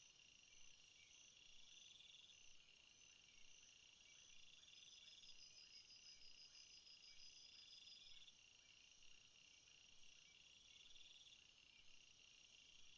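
Faint insects chirping in the background: pulsed high trills repeating about every two seconds over a steady high-pitched drone.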